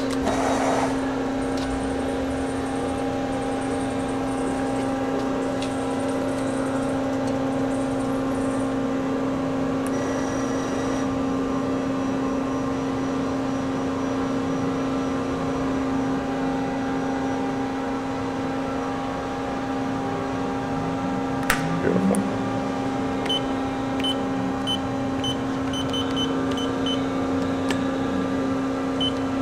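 1983 Matsuura MC-760-V2 CNC vertical machining center running under power with a steady hum. About two-thirds of the way through there is a sharp clack and a brief rising whir, then a run of short high beeps near the end.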